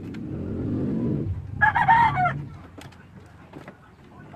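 A rooster crows once, briefly, about a second and a half in; this is the loudest sound. A low rumble swells and fades just before it, and faint clicks from a circuit board being handled run through.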